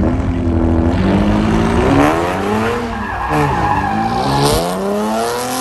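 Chevrolet Camaro drifting: its engine revs up and down several times as the rear tyres spin and squeal on the asphalt.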